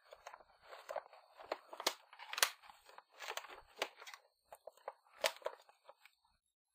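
Toy blister packaging handled and picked open by hand: irregular crinkling of the plastic and cardboard, with sharp snaps now and then, the loudest about two and a half seconds in and again about five seconds in.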